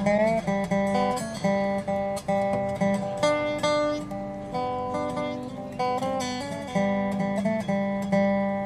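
Background music: acoustic guitar picking notes and chords in a steady run, with a few notes bent or slid in pitch.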